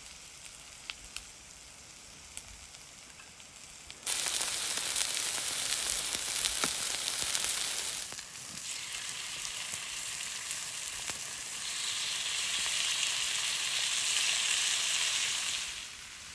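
Food frying in lamb fat on a hot flat limestone slab over a fire. A faint sizzle with a few small pops turns suddenly into a much louder sizzle about four seconds in, as the lamb goes onto the hot stone, and it stays loud almost to the end.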